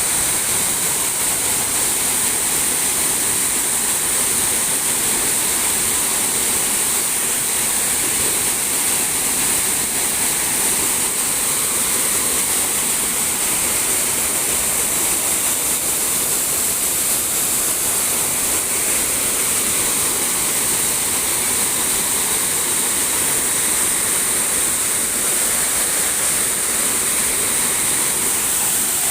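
Waterfall crashing steadily, a constant hiss of falling water heard from close beneath the falls.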